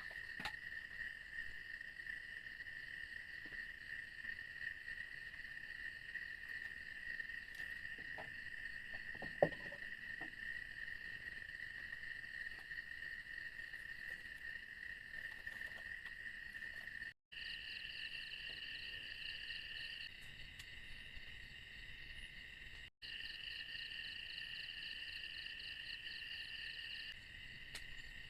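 Chorus of insects, crickets or similar, chirring steadily at a high pitch. After about two-thirds of the way in it takes on a fast pulsing trill. A single sharp click sounds about a third of the way in.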